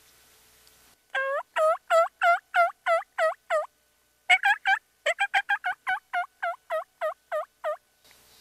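Two-reed diaphragm turkey mouth call blown to imitate a hen turkey: a run of about nine yelps, a short quick burst of notes, then a faster run of about a dozen yelps.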